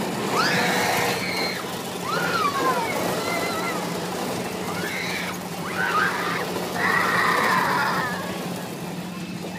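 Steady low hum of a spinning carnival ride's machinery, with high, sliding shrieks from riders over it several times, the longest about seven seconds in.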